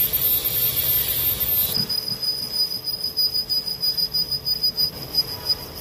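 Metal lathe machining a heat-treated steel drill-press spindle sleeve. A hissing cut gives way abruptly, about two seconds in, to a steady high-pitched squeal as the boring bar cuts the bearing seat inside the bore.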